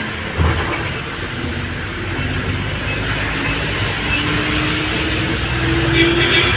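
Bus running at speed with steady engine and road noise and a thump about half a second in; the engine note rises slowly near the end as it gathers speed.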